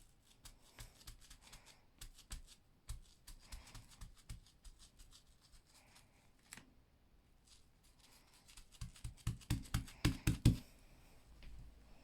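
Sponge dabbing ink onto fabric: scattered soft taps and handling noises, then a quick run of louder dabs about nine seconds in.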